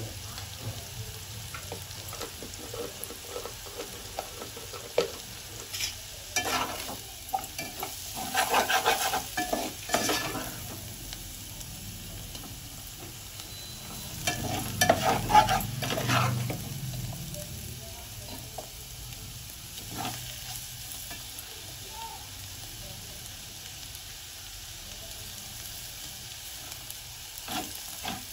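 Diced potatoes sizzling in oil in an aluminium pot, with a steel ladle stirring and scraping against the pot. The stirring comes mostly in two louder bouts, one a quarter of the way in and one around the middle.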